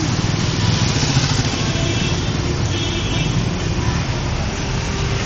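A motor vehicle's engine running steadily, with a constant noisy hum.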